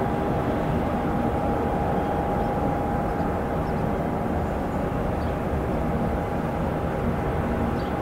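Steady ambient rumble with a constant mid-pitched hum running through it, unchanging in level, with a few faint short high squeaks now and then.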